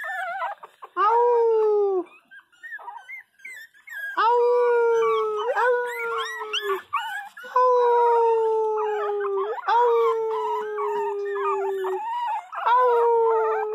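Pinscher puppy crying in a series of long, drawn-out howls, about six in a row, each one slowly falling in pitch.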